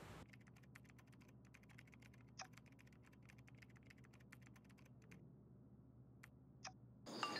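Faint typing on a laptop keyboard: a quick, uneven run of light key clicks for about five seconds, then a pause and two single clicks near the end.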